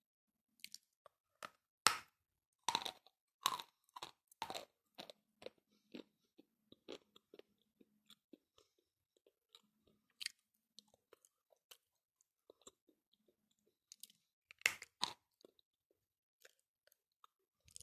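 A person biting and chewing dry Kramatorsk chalk, crunching: a run of sharp bites about two to four seconds in, then chewing crunches at about two a second, and another loud bite near fifteen seconds.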